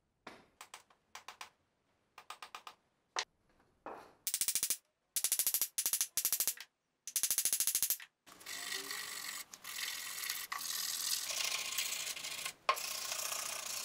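Mallet blows knocking a new maple handle into an axe head, in short groups of sharp knocks. From about eight seconds in, a steady scraping follows as a small piece of wood is worked by hand on the bench.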